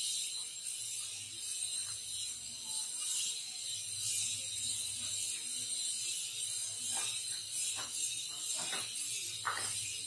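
Fingers working at a small cardboard earphone box, peeling back sellotape and pulling the lid open: faint scratchy crackling, with a few sharper clicks in the last few seconds.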